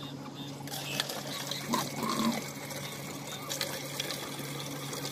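Tap water pouring and trickling into a large plastic water bottle as it fills, over a steady low hum.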